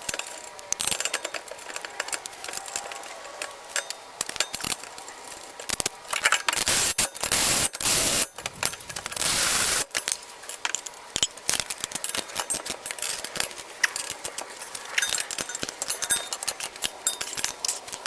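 Metal hand tools clicking and clinking on a car's rear wheel hub, with a few short spells of dense rasping near the middle, consistent with a ratchet wrench running bolts in.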